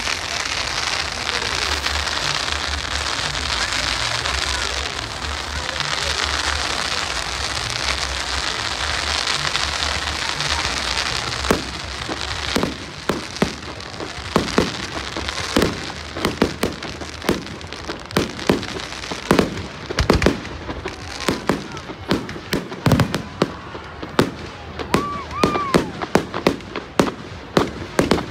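Fireworks display: a steady crackling hiss for the first eleven seconds or so, then a rapid string of firework bangs that gets denser, with a brief whistle about twenty-five seconds in.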